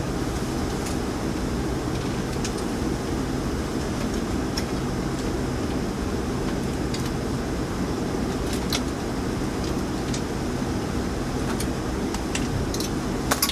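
Steady low mechanical drone, with scattered light clicks and taps and a sharper pair of clicks near the end.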